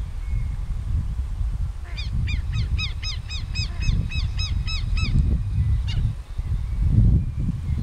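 Southern lapwing (quero-quero) giving a rapid run of repeated alarm calls, about five a second for some three seconds starting about two seconds in, then one more call a little later. Strong wind buffets the microphone throughout with a low rumble.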